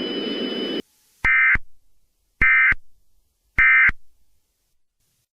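Emergency Alert System end-of-message data bursts: three short, identical raspy digital screeches about a second apart, the SAME code that closes an alert. Just before them, a hiss with a steady high tone cuts off suddenly.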